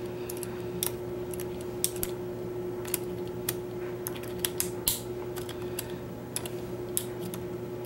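Lishi HU100 pick working the wafers of a Chevrolet car lock: irregular small, sharp metallic clicks as the pick probes and sets the wafers, with a couple of louder clicks about two and five seconds in.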